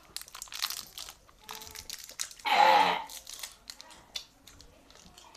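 Candy wrappers crinkling and tearing in scattered bursts as candies are unwrapped. About halfway through, a short, loud vocal outburst falls in pitch.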